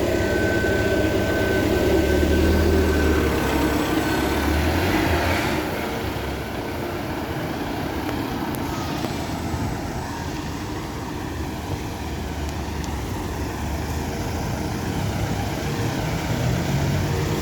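Bus running, heard from on board: engine and road noise, louder for the first five seconds or so and then easing to a lower, steadier level. A thin, steady high whine runs alongside for the first few seconds, then stops.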